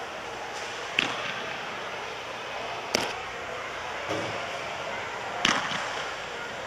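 Softballs smacking into leather gloves during throwing drills: three sharp pops about two seconds apart, each echoing briefly in an indoor facility, with a softer thud between the last two.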